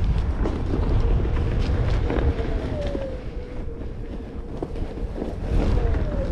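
Onewheel GT hub motor whining at a steady pitch that falls twice as the board slows, over wind buffeting the microphone. Scattered ticks and knocks come from the tire rolling over the trail.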